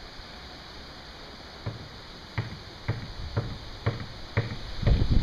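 Footsteps on gravel, about two steps a second, starting a couple of seconds in and getting louder toward the end.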